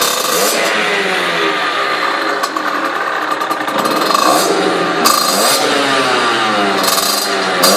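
Beta RR Motard 50's 50 cc two-stroke engine revving up and down over and over, its pitch repeatedly rising and falling, in a tunnel.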